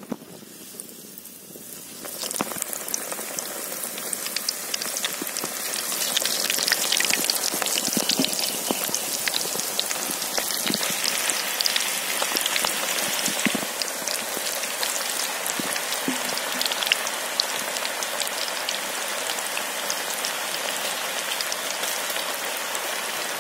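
Drumstick-leaf pakoda batter deep-frying in hot oil in a wide aluminium kadai: a dense sizzle with fine crackling. It starts up about two seconds in and grows louder over the next few seconds as more batter goes into the oil, then holds steady.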